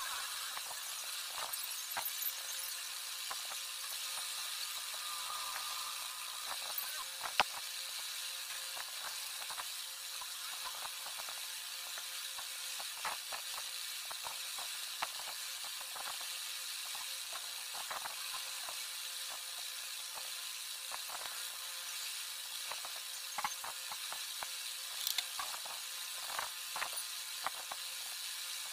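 A colouring stick scraping and tapping on paper pinned to a wooden board: scattered small clicks and ticks, one sharper tick about seven seconds in, over a steady background hiss.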